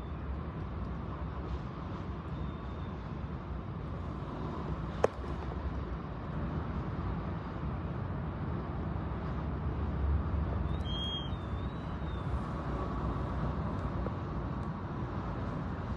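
Storm wind blowing hard, a steady rush with deep rumbling that swells about ten seconds in. A single sharp click about five seconds in, and a brief high wavering tone near eleven seconds.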